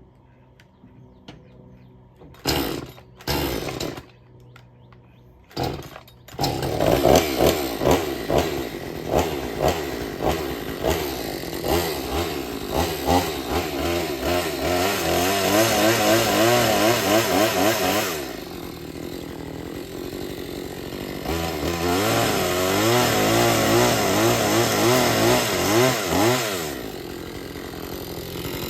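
Gas chainsaw starting: a few short bursts, then the engine catches about six seconds in and runs. It is revved up and down, drops back to idle around the middle, revs again, and settles to idle near the end.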